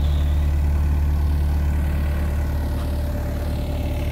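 Case CX60C mini excavator's diesel engine idling with a steady low hum.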